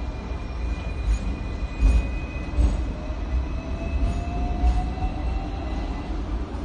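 Double-decker electric tram running along its tracks, heard from inside on the upper deck: a low rumble with occasional knocks, and a faint whine that rises slowly in pitch.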